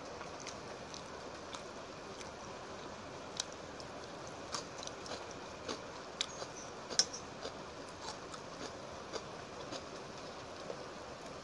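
Close-up eating sounds: scattered soft, wet clicks and smacks of chewing and of fingers working soaked rice and egg fry, over a faint steady hiss.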